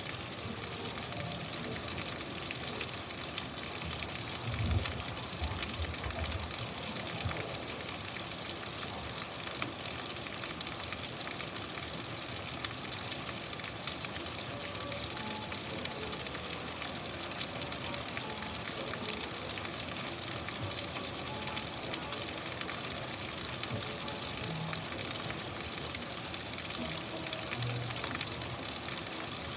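Steady rain falling: a dense, even hiss. A few low thumps come about five seconds in.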